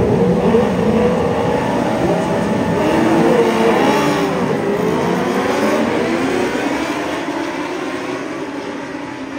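A grid of 650 cc inline-four Honda CBR sport bikes launching from a standing race start. Many engines rev at once, their pitches rising and falling as they accelerate, and the sound fades gradually as the pack pulls away.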